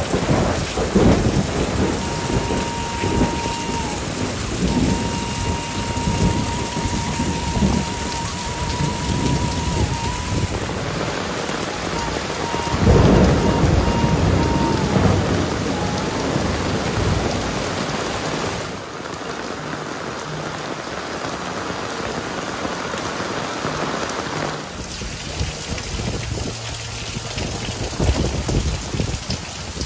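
Heavy tropical rain pouring down on roofs and foliage, with runoff streaming off the roof edges. Low rumbles of thunder come through, the loudest about thirteen seconds in.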